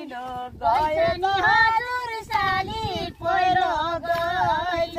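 A high female voice singing a Nepali folk song in long, wavering held notes: a work song sung while weeding maize with hoes.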